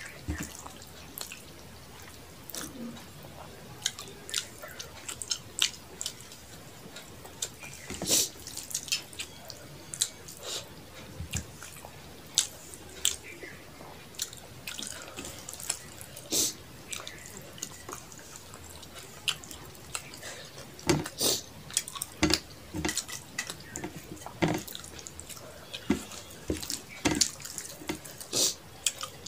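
Wet eating sounds of a meal eaten by hand: fingers kneading rice and fish curry on a plate, and chewing. They come as irregular short, sharp, wet clicks and squelches, thickest near the end.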